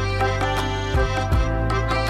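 Instrumental background music with held tones over a steady drum beat.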